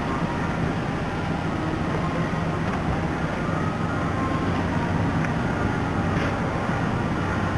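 Steady low rumble of a marine engine over a constant noisy hiss of wind and water.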